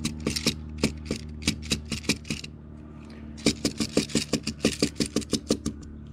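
Rapid plastic-and-brass clicking as a red 3D-printed speed loader is tapped to drop .22 LR cartridges into a Ruger Mark IV pistol magazine: two runs of quick taps, about four or five a second, with a short pause about two and a half seconds in. A steady low hum runs underneath.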